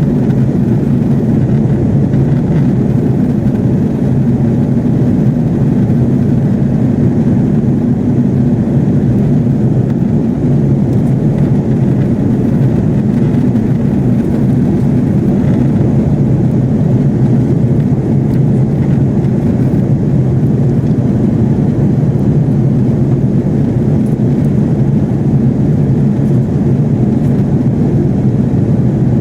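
Steady cabin drone inside an Airbus A330-300 in flight: engine and airflow noise, low-pitched and even, with no changes.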